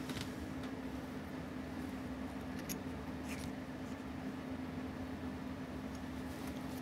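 Steady low background hum, with a few faint light clicks from small watch parts being handled on the bench as the dial comes off the movement.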